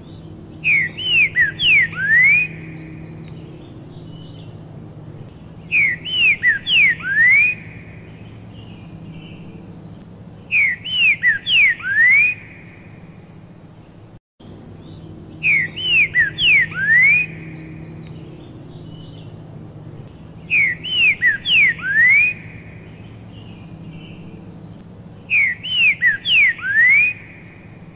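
Male pixarro (green-winged saltator) singing its loud, high, whistled song: a phrase of quick sweeping notes ending in a rising note, repeated six times at even intervals about five seconds apart.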